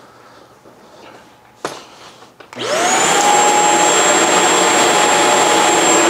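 Shark Stratos corded stick vacuum starting up: after a click, its motor spins up with a quickly rising whine and then runs steadily and loudly.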